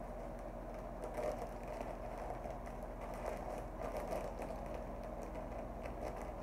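Faint crinkling and rustling of a plastic bag as a disposable gown is stuffed into it, over a steady low hum.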